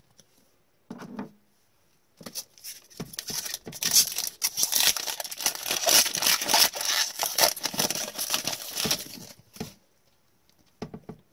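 Upper Deck hockey card pack's foil wrapper being torn open and crumpled by gloved hands: a dense crackling rustle that lasts several seconds and stops suddenly, followed by a few soft taps as the cards are handled.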